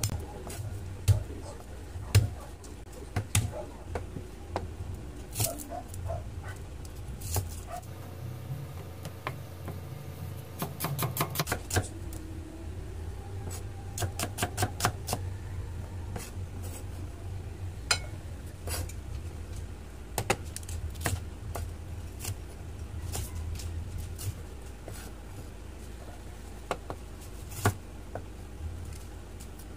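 Kitchen knife chopping on a plastic cutting board: irregular knocks of the blade striking the board, with a quick run of rapid chops about ten seconds in, as garlic, shallots and a red pepper are cut.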